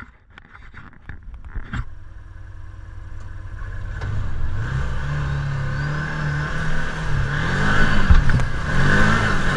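Can-Am Commander side-by-side engine pulling through deep mud, getting steadily louder and revving up and down several times in the second half as it works through the bog. A few knocks and rattles come in the first couple of seconds.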